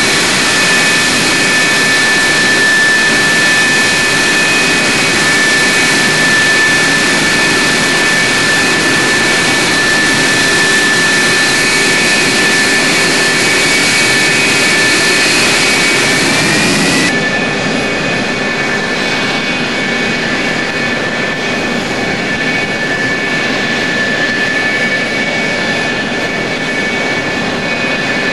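Lockheed F-104 Starfighter's General Electric J79 turbojet running with a steady high whine over a loud rushing noise. The whine rises slightly about sixteen seconds in, then the sound cuts abruptly to a slightly quieter run of the same steady whine.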